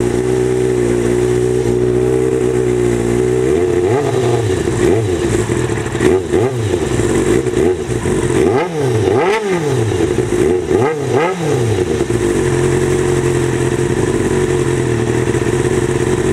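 2000 Kawasaki ZX-6R's inline-four engine through a Yoshimura RS-3 exhaust, idling steadily, then blipped in a quick series of about a dozen short revs starting about four seconds in, then settling back to idle for the last few seconds.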